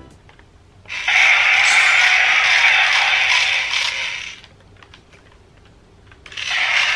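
DX Drill Crusher toy's electronic drill attack sound effect playing from its small built-in speaker, triggered twice: the first lasts about three and a half seconds, and the second starts near the end.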